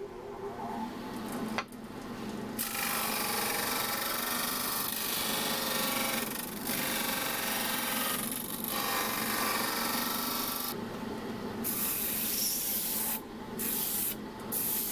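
A shop-made disc sander, an old wood lathe driving a sanding disc, spins with a steady motor hum. A piece of wood is pressed against the abrasive disc: a gritty sanding noise starts about two and a half seconds in and breaks off briefly several times as the piece is lifted and pressed again.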